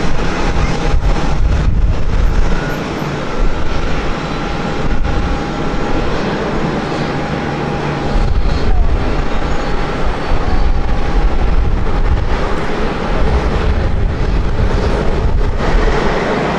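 Boeing 787-8's Rolls-Royce Trent 1000 jet engines at low taxi power: a steady rush with a low rumble and a thin steady whine.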